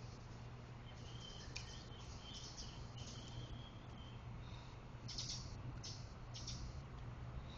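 Faint, short high chirps of small birds, several in a row, followed near the end by a few brief rustling, sniffing-like noises.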